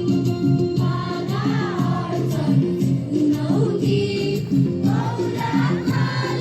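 A song sung by a group of voices over an instrumental accompaniment that plays a quick run of short, stepped notes. The voices come in about a second in.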